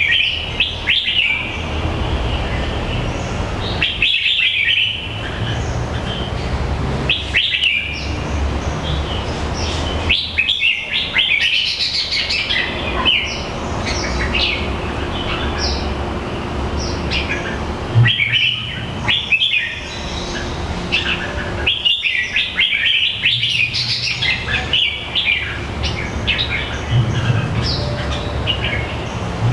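A bird chirping in bursts of quick, high chirps that come every few seconds, with a longer run of chirping in the middle and again near the end.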